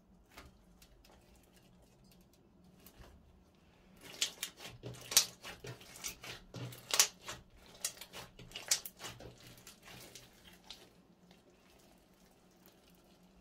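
Slime being squeezed and poked by hand: a run of sticky, wet clicks and pops starting about four seconds in and fading out near the end.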